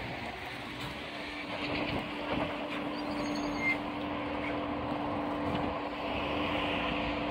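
Ebusco battery-electric bus heard close alongside: a steady electric hum sets in about one and a half seconds in and holds at one pitch, over a rushing background noise.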